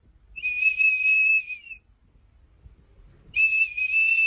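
A high, steady whistle sounding twice, each note held about a second and a half, with a pause of about a second and a half between them.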